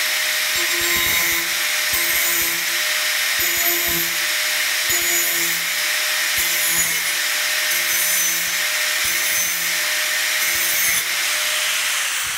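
Angle grinder with a thin cutting disc running at a steady whine, cutting fresh teeth into a blunt oscillating multi-tool blade in rasping strokes about once a second. Near the end it is switched off and the disc spins down, its whine falling in pitch.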